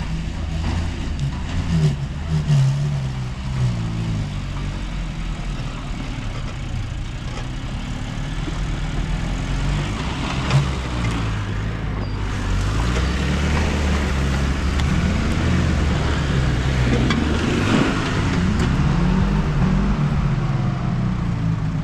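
Jeep Cherokee's engine running under load as the 4x4 is driven slowly off-road, its pitch rising and falling several times in the second half as the throttle is worked. A single sharp knock about ten seconds in.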